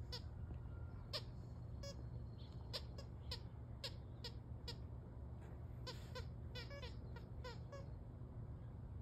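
Squeaky soccer-ball dog toy squeaking as a dog chews it: a dozen or so short, high squeaks spread through, with a few quick stuttering runs of squeaks about six to seven and a half seconds in.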